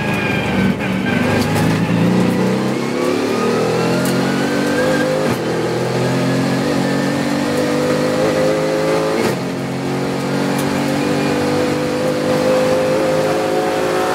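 Mercedes-AMG GT4's twin-turbo V8 at full throttle, accelerating hard from low speed through the gears. The engine note rises steadily, drops with an upshift about five seconds in, and climbs again. A second upshift about nine seconds in drops it once more before it rises to the end.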